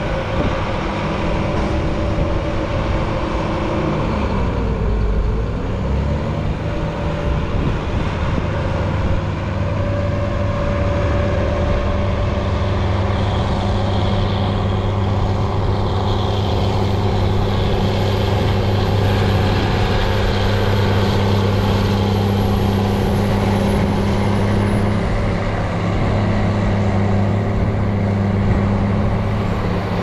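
Large farm tractors' diesel engines running steadily under load as they push and pack chopped corn silage on the pile.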